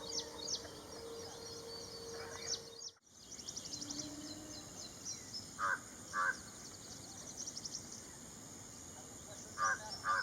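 Ashy prinia calling: rapid series of high, thin notes, with a brief dropout about three seconds in. Midway and again near the end another bird gives a louder, lower, harsher call, twice each time.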